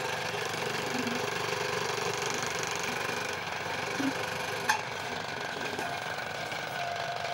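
An old electric scroll saw running steadily, its blade stroking up and down as it cuts a curved line through a thin board, with one sharp click a little past halfway.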